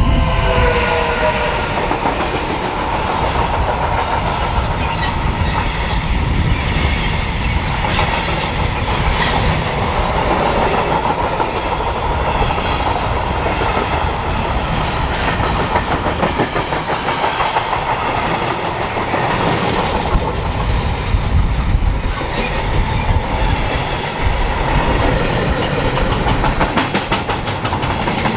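An electric passenger or freight train on a mainline passing close by at speed, with the steady rush of wheels on rail and rapid clicking over the rail joints. A few falling tones near the start.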